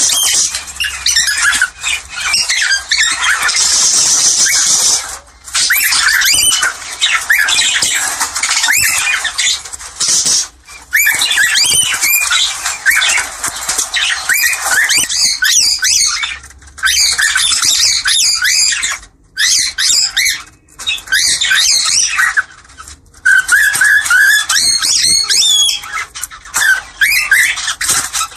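Cockatiels chattering in breeding-call mode: a dense, loud run of quick chirps, warbles and squawks, with a few short breaks.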